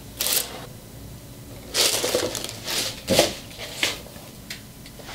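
Rustling, crinkling handling noise in several short bursts as a suede sneaker is turned over in the hands.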